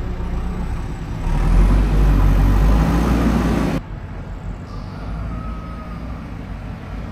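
Vehicle and road noise: a steady low rumble, with a much louder rushing stretch between about one and four seconds in that cuts off sharply.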